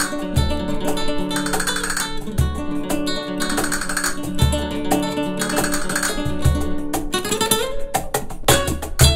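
Flamenco castanets clicking and rolling over a rondeña played on acoustic guitar, with a low cajón stroke about every two seconds. The castanet clicks grow denser near the end.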